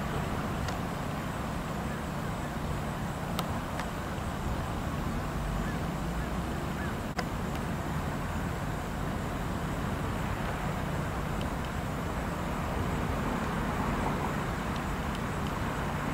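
Steady low rumble of a Union Pacific diesel locomotive approaching slowly in the distance, with one faint click about seven seconds in.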